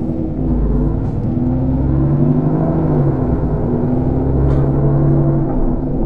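Enviro 400 Trident double-decker bus engine running with a steady low rumble and hum, heard from the upper deck; its note dips once about three seconds in and holds at the lower pitch.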